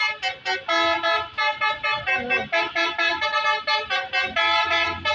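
Bus telolet horn, a set of musical air-horn trumpets, playing a quick tune in short blasts, with several tones sounding together as chords and changing every fraction of a second.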